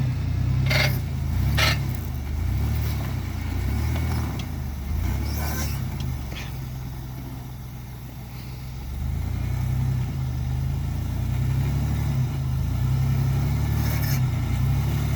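Astro van's V6 engine running under load while crawling off-road, easing off around the middle and picking back up after about 9 seconds. A few sharp knocks cut through in the first six seconds.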